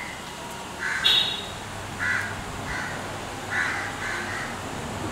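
Crows cawing in the background: about five short, harsh caws spaced irregularly, the loudest about a second in.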